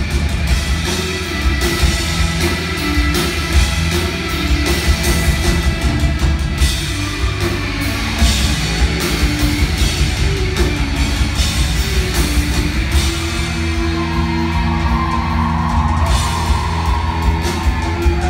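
A rock band playing live and loud: electric guitars and bass over a busy drum kit, with a wavering guitar or vocal line coming in over the top near the end.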